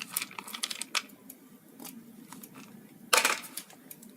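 Light clicks and clinks of a spoon and added dry fruits against a steel electric kettle of hot milk, with one louder clatter about three seconds in.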